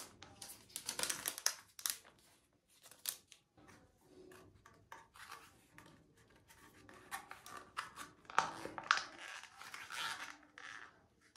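Hands tearing open and handling a small face-mask sachet: irregular crinkling, tearing and rustling of the packaging, with scattered sharp clicks.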